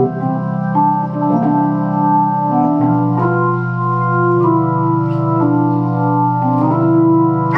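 A Hammond T-series home organ with a built-in Leslie speaker, played in sustained chords that change every second or so. Each change brings a short click.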